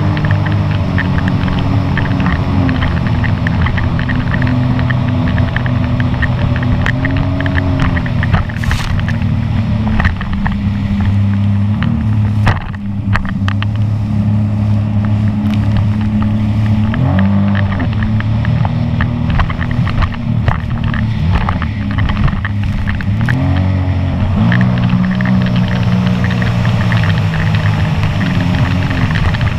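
Sea-Doo personal watercraft engine running hard at speed, its pitch dipping and rising several times as the throttle changes. Sharp thumps and splashes come as the hull hits the chop.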